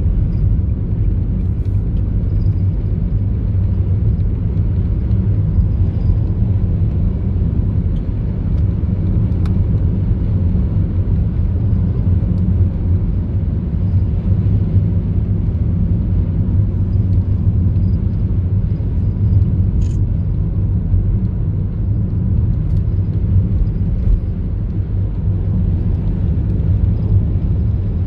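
A car driving at a steady speed: an even, low rumble of road and engine noise.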